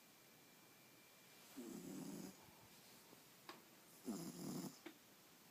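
Snoring: two slow snores about two and a half seconds apart, each lasting well under a second, with near silence between them.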